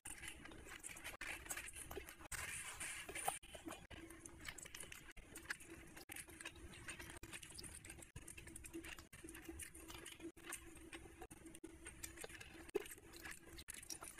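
Close-up eating by hand: fingers squishing and mixing rice and curry, with chewing and lip smacks as a run of small, irregular wet clicks. A faint steady hum runs underneath.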